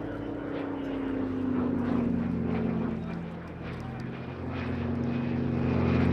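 Yak-3 UTI warbird's radial piston engine and propeller running in a display pass, its note falling slowly in pitch and growing louder toward the end.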